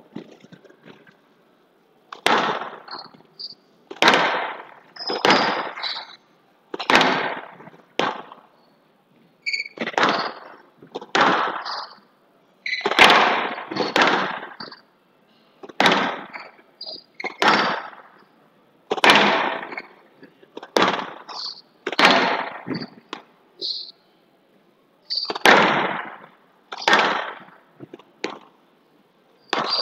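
Squash rally on a glass-walled court: the ball cracks off rackets and walls about once a second, each hit sharp with a short ringing echo.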